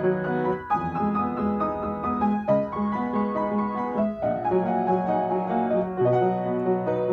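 Upright piano played with both hands at a brisk pace: dense chords over a bass line, the harmony changing every second or two.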